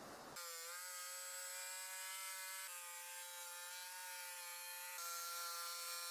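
Makita jigsaw running as it cuts through plywood, a steady high motor whine that starts about half a second in, with small jumps in pitch and loudness a couple of times.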